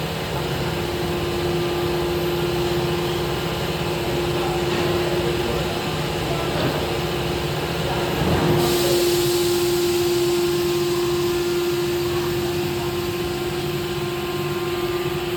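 CNC router spindle running with a steady whine over a low machine rumble; about eight and a half seconds in a high hiss joins it and the whine steps up slightly.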